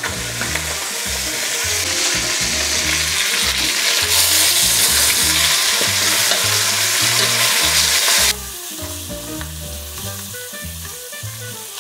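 Chicken pieces frying in olive oil in a hot enamelled cast-iron casserole: a steady sizzle as the skin browns, with the pieces being turned over. The sizzle grows louder in the middle and drops suddenly about eight seconds in.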